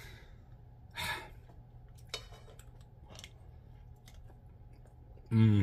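Quiet eating sounds: a short breath about a second in, then faint clicks of a mouthful of fried rice being eaten and chewed from a plastic spoon, with a brief hummed voice sound near the end.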